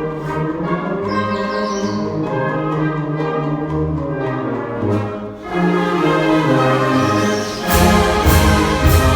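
Concert wind band playing sustained brass and woodwind chords. About eight seconds in, the full band comes in louder, with sharp strikes and a heavy low end.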